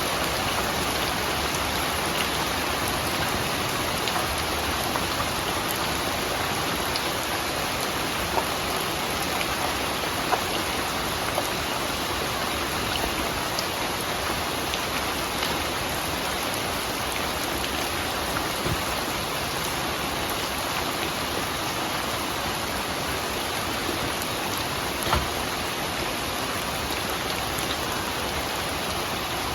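Steady rain falling, with a few louder single drops landing now and then.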